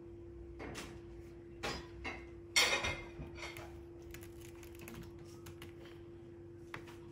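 Scottish Fold kitten's claws scratching and gripping a sisal-rope scratching post: a string of short scratchy rasps and clicks, the loudest about two and a half seconds in, over a steady low hum.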